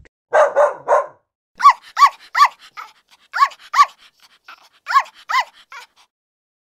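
Dog barking: three rough barks, then a run of short, sharp, high barks, mostly in pairs, stopping about six seconds in.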